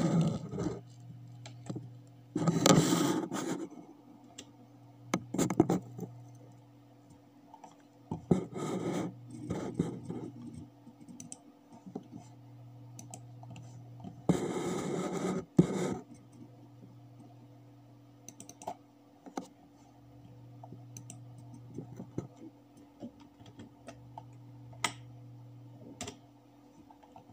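Scattered clicks of a computer mouse and keyboard, with a few louder scuffing noises of about a second each and a steady low hum underneath.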